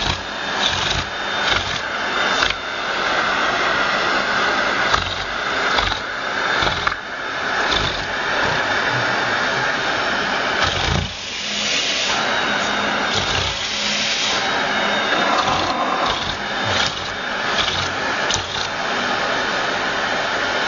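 Vacuum cleaner running with a steady motor hum and a rush of suction at the hose nozzle. The noise rises and falls as a cat mouths and licks the nozzle.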